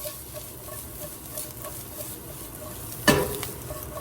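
Onions, carrots, garlic and eggs sizzling in hot sesame oil in a pan as they are stirred and mixed, with small scraping ticks and one loud knock of the utensil against the pan about three seconds in.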